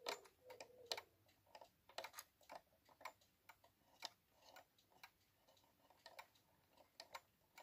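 Victoria Arad cuckoo clock movement ticking faintly, about two ticks a second, from its escapement, which the owner takes for a Brocot escapement with symmetrical pallets.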